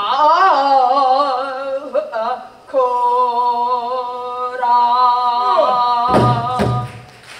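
Pansori singing: a solo voice holds long notes with a wide, wavering vibrato. A few strokes on the buk barrel drum come near the end.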